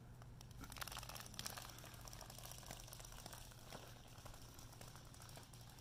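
Vinyl Funko Pop figures toppling one into the next in a long domino chain: a faint, rapid run of small clicks and taps, thickest about a second in and then thinning out.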